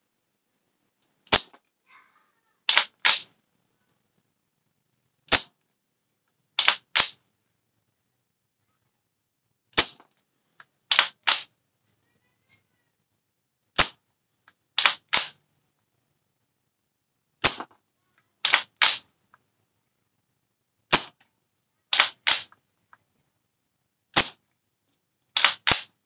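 KC-02 CO2 airsoft rifle firing seven shots about four seconds apart, each shot followed about a second later by a quick pair of sharp clicks as the bolt is worked back and forward.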